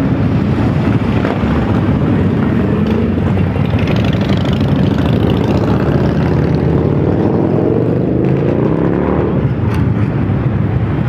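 Loud motorcycle engines running close by, one of them revving up with its pitch climbing about eight seconds in.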